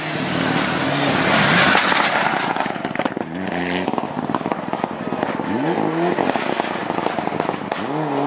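Mitsubishi Lancer Evolution rally car driven hard on gravel: a loud rush of sprayed gravel about a second in, then the engine revving up in two rising sweeps in the second half, with many sharp crackles and clicks throughout.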